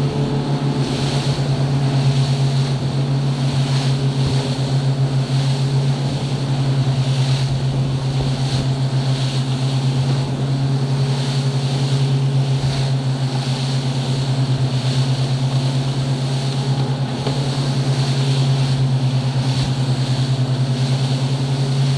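Yamaha outboard engine running steadily at cruising speed as the boat travels fast over open water. A constant drone is mixed with the rush of wake and spray.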